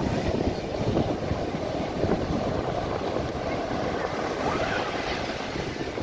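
Heavy storm surf breaking and rushing up a sandy beach, with wind rumbling on the microphone.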